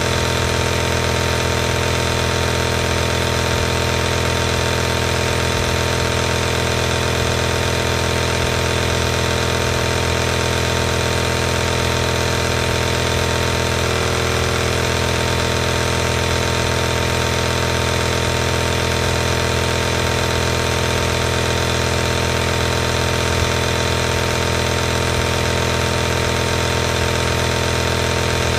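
Compressor nebulizer running steadily, its small electric air compressor giving a constant mechanical hum and buzz.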